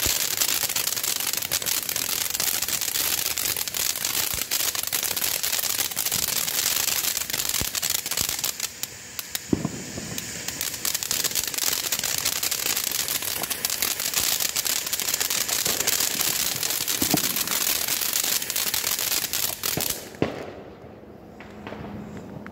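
Ground fountain firework spraying sparks with a loud, steady hiss and dense crackle. It thins briefly about nine seconds in, picks up again, and burns out about twenty seconds in with a last couple of pops.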